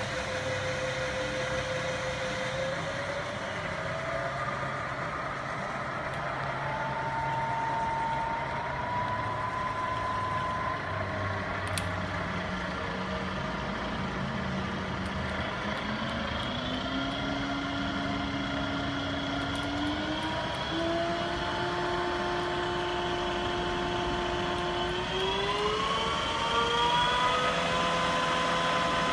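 Sharp LMV-50 vertical milling machine running under power: a steady mechanical whine that steps up in pitch several times as its speed is turned up.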